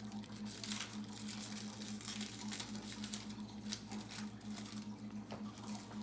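Trading cards being handled and slid past one another: soft, scattered scrapes and taps over a steady low hum.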